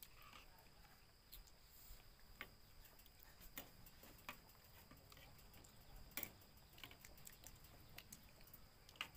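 Near silence, with faint, scattered clicks of spoons tapping on plates and bowls during a meal.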